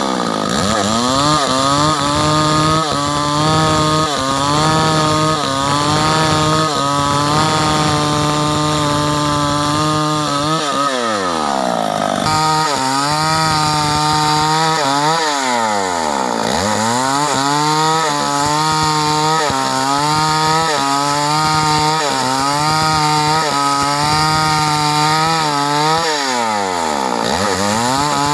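Stihl 038 two-stroke chainsaw ripping a timber beam lengthwise into planks, running at high revs under load. The engine pitch drops and climbs back up several times as the throttle is eased and reopened.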